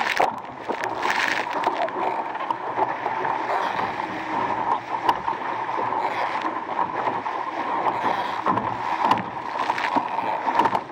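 Water rushing and splashing along the hull of an RS Aero racing dinghy sailing at speed, with a few louder slaps of spray.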